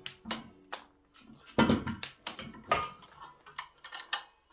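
Hands handling a boxed clay pigeon thrower's parts and packing: irregular rustling and clicking, with the loudest rustle a little under two seconds in.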